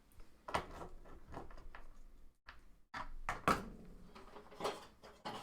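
A series of sharp clicks and knocks, the loudest about three and a half seconds in: metal handling inside a desktop computer case as the old hard drive is unscrewed and freed from its bay.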